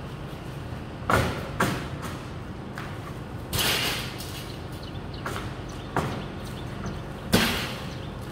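Heavy wrapped bundles being dropped, set down and shoved across a board floor: a few dull thuds, one longer scraping rustle near the middle, over a steady low hum.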